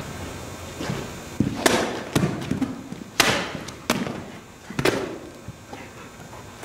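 A sword chopping through tubes on a cutting stand: about six sharp whacks over four seconds, the loudest about three seconds in, with the cut pieces clattering onto the concrete floor.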